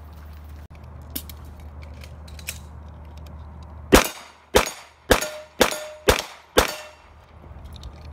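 Six gunshots in quick succession, about half a second apart, each with a short ring, from another shooter on the range. Before them come a few light clicks as .45 cartridges are pressed one by one into a pistol magazine.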